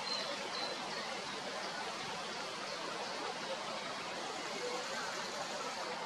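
Steady, even outdoor background hiss with a few faint, high bird chirps in the first few seconds; no cuckoo call is heard.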